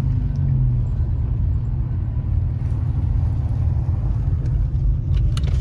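A car driving slowly, heard from inside the cabin: a steady low rumble of engine and tyre noise, with a few short ticks near the end.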